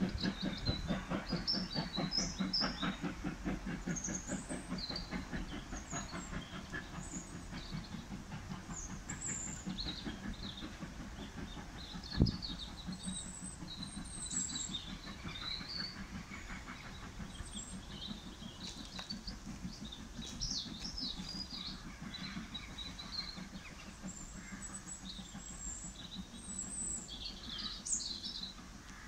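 Black 5 No. 5025 steam locomotive's rhythmic exhaust beats fading steadily into the distance as it pulls away, with birds chirping throughout. A single sharp knock about twelve seconds in.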